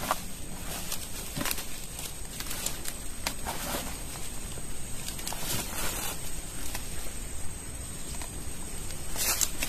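Irregular rustles and light knocks of a telescopic fishing rod and padded rod bag being handled among reeds and leaves, over a steady faint high-pitched tone.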